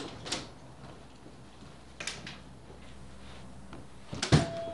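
An apartment door being opened, with a few sharp latch clicks, then shut with a loud knock near the end, followed by a brief ringing.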